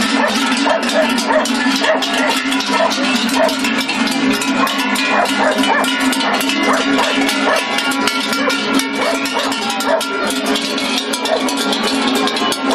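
Many large cowbells on a herd of Pezzata Rossa (red pied) cows clanking out of step with each other as the cows walk along.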